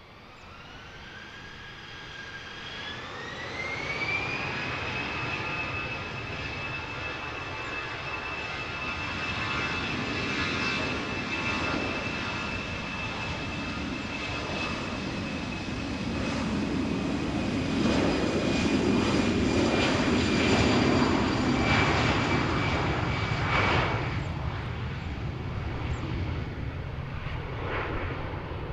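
Airbus A320-214's twin CFM56 turbofans spooling up to takeoff thrust: a whine rises in pitch over the first few seconds, then holds steady while the jet noise grows louder, peaks about two-thirds of the way through as the aircraft passes on its takeoff roll, and then fades.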